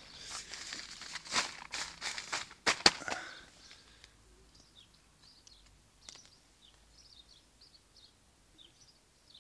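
Nylon tent fabric and stuff sack rustling and crinkling as they are handled, with several sharp crackles, the loudest just under three seconds in. After about four seconds the handling stops and small birds chirp faintly.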